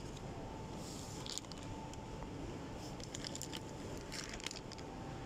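Supermarket background hum with a faint steady whine, and a few brief soft rustles about a second in and again around three to four seconds in.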